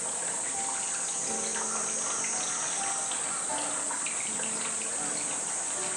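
Steady high-pitched insect drone, typical of summer cicadas, over the rush of running water, with scattered short faint tones.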